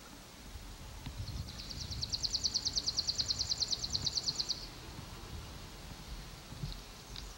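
A songbird's trill: a rapid, even series of high notes, about ten a second, lasting about three seconds and stopping about four and a half seconds in.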